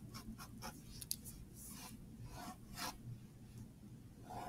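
Pen scratching across a paper worksheet in a run of quick strokes, then a few longer ones, as lines are drawn over a diagram.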